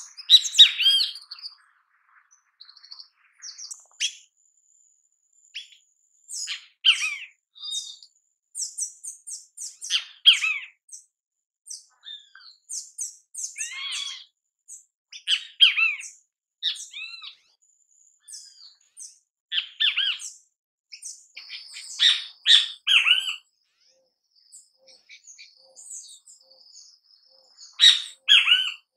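Great kiskadee calling: clusters of loud, harsh notes every few seconds, with fainter high-pitched chirps in between.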